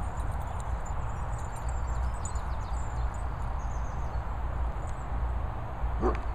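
Wind rumbling on the microphone in an open field. About six seconds in, a short yip from one of the small dogs as they wrestle.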